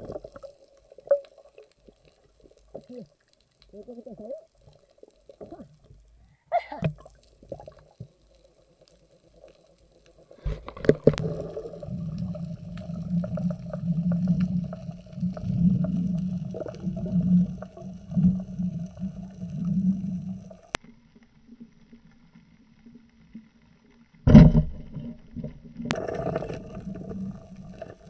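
Underwater sound with a faint steady hum. About a third of the way in, a rough bubbling rumble starts and runs for about ten seconds. Near three-quarters in comes a single sharp, loud crack as a speargun spear is shot into a fish, followed by more bubbling.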